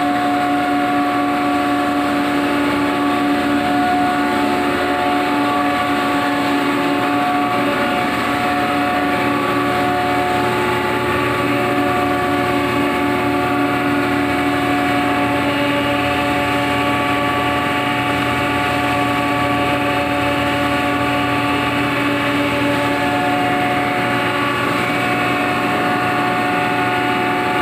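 Red chilli powder grinding plant running: electric motors, blower and grinder making a loud, steady drone with several steady whining tones.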